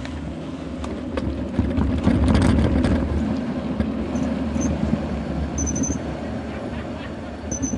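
Bicycle rolling downhill over brick paving: a steady rumble with rattling knocks, loudest about two seconds in. A few short, high whistles come in from about halfway and again near the end.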